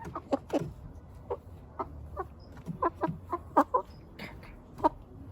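Young backyard chickens clucking: a string of short, separate calls, a couple a second.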